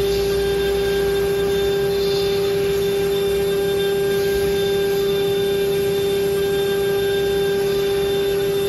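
CNC router spindle running at a constant speed, giving a steady whine that does not change.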